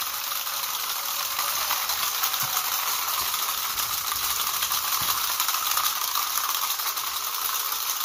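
Many plastic wind-up toy parrots hopping on a tile floor at once: a dense, steady rattle of their clockwork mechanisms whirring and their plastic feet tapping on the tiles.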